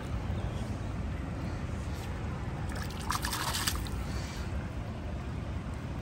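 Water splashing and trickling as a smallmouth bass is released back into the river, with a brief burst of splashing about three seconds in, over a steady low rumble.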